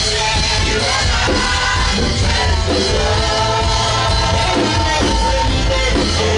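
Loud live worship music with a full band and a heavy, steady bass, and voices singing over it.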